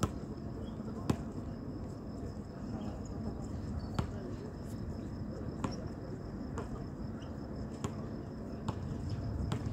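A basketball bouncing on an outdoor concrete court: sharp single thuds about once a second at irregular spacing, over a steady low background rumble and a thin, steady high-pitched tone.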